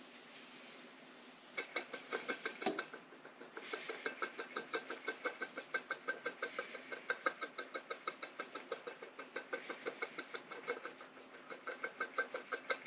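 Powdered sugar sifter being tapped and shaken over a pancake dish, giving a rapid, even run of light taps, about six or seven a second, with brief pauses and one sharper knock about three seconds in.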